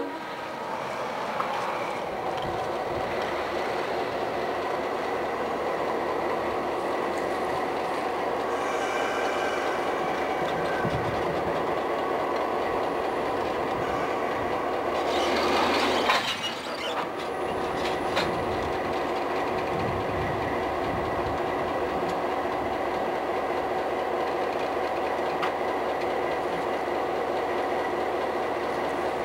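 An EMD GP16 diesel locomotive running as it rolls slowly past close by, a steady engine drone with held tones over it. About fifteen seconds in a loud rushing noise swells for a second and cuts off sharply.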